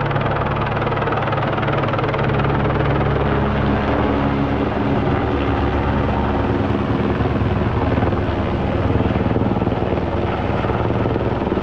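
Rescue helicopter's rotor and turbine running close by, a loud, steady sound whose low hum shifts in pitch about four seconds in.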